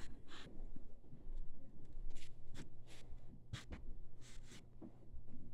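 Several short, sharp scraping strokes of a hand tool worked on wood, over a steady low hum.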